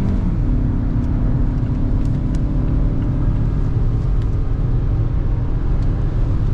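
Car driving on a snowy road: a steady low rumble of engine and tyres.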